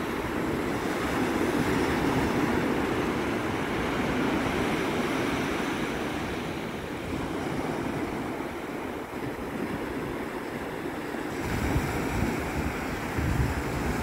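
Ocean surf breaking and washing up a sandy beach in a steady wash of noise. About three-quarters of the way through a low rumble joins in.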